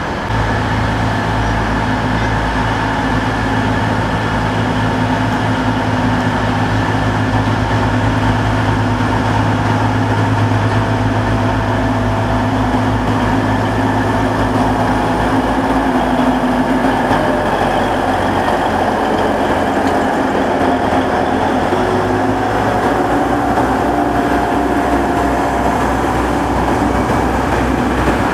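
Regional train idling at the platform: a steady engine hum with a fast low pulsing underneath.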